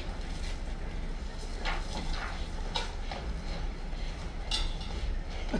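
Faint, scattered small clicks and light clinks, a handful over a few seconds, over a steady low hum of a live theatre recording.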